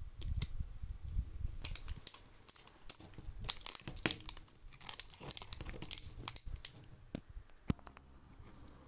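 Thin plastic wrapping crinkling and tearing as the layers of a L.O.L. Surprise ball are peeled off by hand, a busy run of crackles that thins out near the end.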